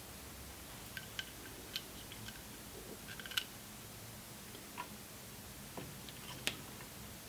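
Scattered light metallic clicks and taps as an AN hose-end fitting is handled and threaded onto braided hose in a vise, with a sharper click about three and a half seconds in and another near the end.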